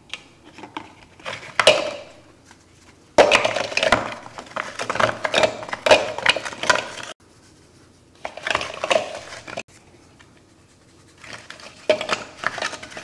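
Frozen-solid tilapia fillets knocking and scraping against each other and the bowl as they are tossed by hand in seasoning: hard clattering in four bouts with short pauses between.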